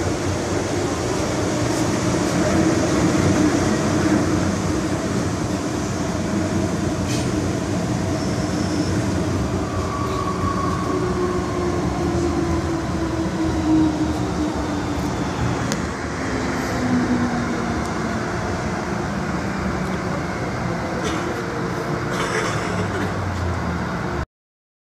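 Interior running noise of an MTR M-Train metro car: a steady rumble and wheel noise with occasional faint clicks. A whine falls in pitch from about ten to seventeen seconds in. The sound cuts off suddenly near the end.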